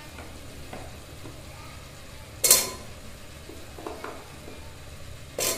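A steel spoon stirring chicken and vegetables in a small pressure cooker, with light scrapes and clicks. Twice, about three seconds apart, the spoon hits the side of the pot in a loud clank.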